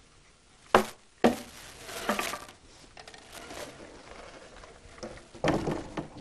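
Handling noise as a longcase clock movement with its dial is lifted into the wooden case: two sharp knocks about a second in, some rustling, then a heavier clatter near the end as the movement is set down in place.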